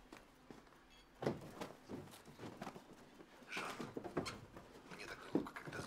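Scattered knocks and thuds at irregular intervals, with a busier clatter of small impacts a little past the middle, like things being handled in a small room.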